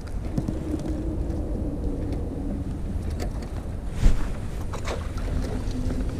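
Wind buffeting the microphone over a steady low motor hum, with a single knock about four seconds in.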